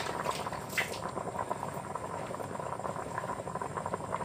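Water boiling in a pot on a gas burner with eggs cooking in it: steady bubbling made up of many small pops.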